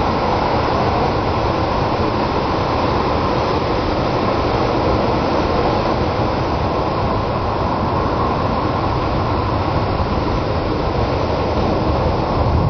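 Ocean surf breaking and washing in, a steady, loud, unbroken roar.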